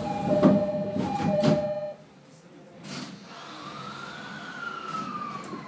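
A Tokyo Waterfront Railway 70-000 series commuter train at a station stop: its two-tone door chime repeats over two low thumps, and then the doors shut and the din of the platform drops away. A second or so later a whine from the train rises and then falls in pitch as it gets under way.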